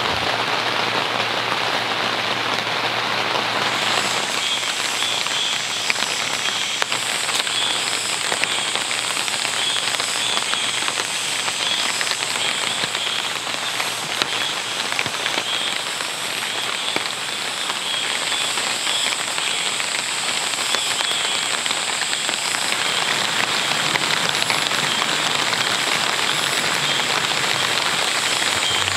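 Steady rain falling, with scattered sharper drops. About four seconds in, a thin steady high whine and quick repeated high chirps join the rain.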